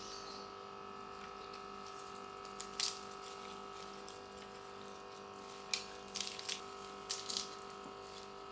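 A steady hum under a few short, crisp crackles, one about three seconds in and a cluster later on, from lettuce leaves being handled, torn and bitten while eating by hand.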